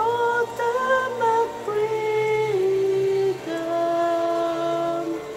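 Recorded church choir song playing: singing in long held notes that step from one pitch to the next, over a low held accompaniment.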